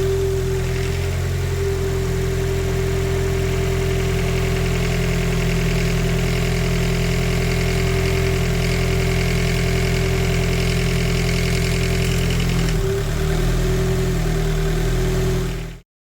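Nissan SR20 four-cylinder engine idling steadily, with a steady tone over the idle; the sound cuts off abruptly near the end.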